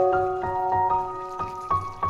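Background music: a gentle melody of ringing, held notes that change a few times a second.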